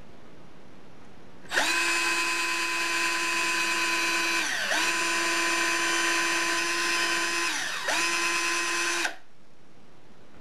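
Cordless drill motor running with a steady whine while drilling small pilot holes into a wooden board. It starts about a second and a half in, its pitch dips briefly and recovers twice, and it stops about a second before the end.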